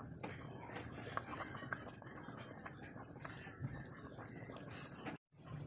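Faint bubbling and small pops from a pot of pork sinigang soup simmering. The sound cuts out briefly near the end.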